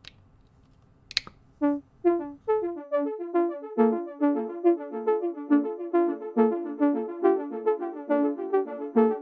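Two clicks as the homemade sound sculpture is plugged in and switched on, then it starts playing a stream of short pitched electronic notes. The notes come singly at first and soon crowd into a quick, dense, overlapping pattern.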